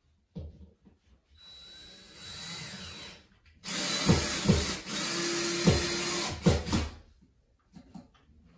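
Cordless drill driving a screw for a blind mounting bracket into the wall. It runs quietly for about two seconds, stops briefly, then runs loud for about three seconds with several sharp knocks as the screw goes in.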